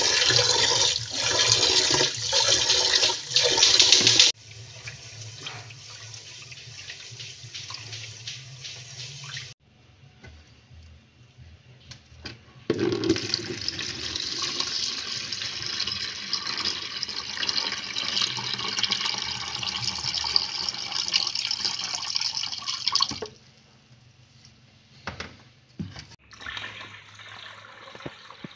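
Tap water running into a metal pot of rice while a hand swishes the grains, for about four seconds, then quieter sloshing. About halfway through, cloudy rice-washing water is poured from the pot into a plastic bucket: a steady splashing stream for about ten seconds, then lighter pouring and a few small knocks near the end.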